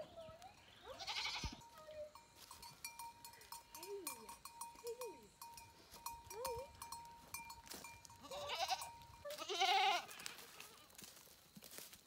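Goats bleating: a few wavering calls, one about a second in and two louder ones near the end, with light rustling and footsteps in dry leaf litter.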